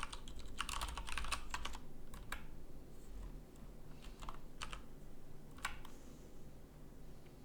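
Fast typing on a split keyboard: a rapid run of key clicks for about two seconds, then a few scattered keystrokes that stop about six seconds in.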